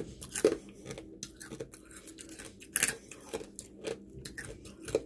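A person chewing crispy fried pork up close, with irregular crunches; the sharpest come about half a second and about three seconds in.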